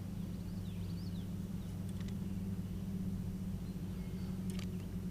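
Quiet pond ambience: a small bird gives a quick series of chirps about a second in, with a few small sharp clicks later, all over a steady low hum.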